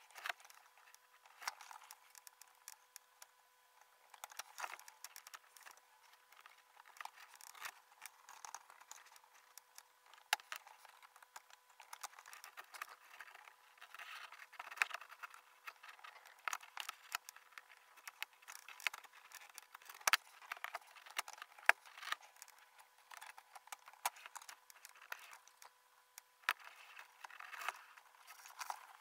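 Karl Storz laparoscopic needle holder and grasper working a suture on a practice model, played at five times speed: a rapid, irregular run of clicks, taps and scrapes, over a faint steady hum.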